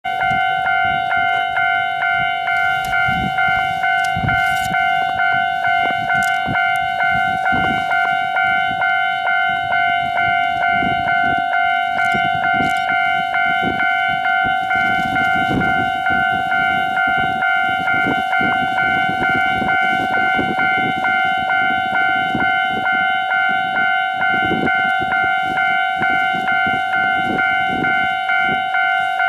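Japanese railway level-crossing warning bell ringing in an even, rapid repeat of a little under two strokes a second, the signal that a train is approaching.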